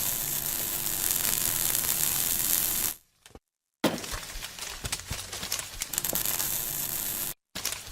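Timesaver wide belt sander grinding dross off plasma-cut mild steel parts: a steady abrasive hiss over a low machine hum, with sharp clinks and crackles of slag and metal. The sound stops abruptly twice, at cuts a little after 3 s and near 7.5 s.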